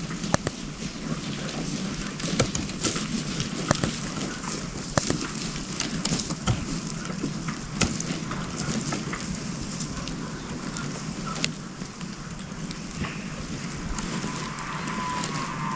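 Campfire crackling: a steady hiss of burning wood with many sharp, irregular pops and snaps. A thin whistling tone joins in near the end.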